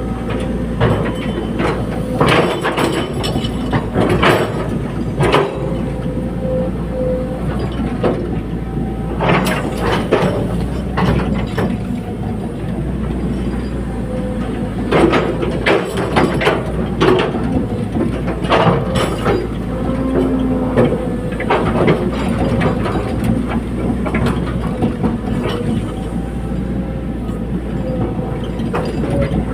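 Caterpillar 320D hydraulic excavator working: its diesel engine runs steadily under load while irregular metal clanks and knocks sound throughout, bunched in several clusters.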